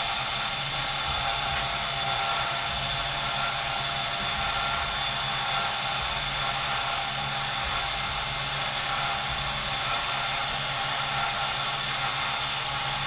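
The Can-Am Outlander 1000 XT's electric winch motor running steadily, reeling in its cable to lift the front of the ATV from a roof beam: an even whine over a low hum.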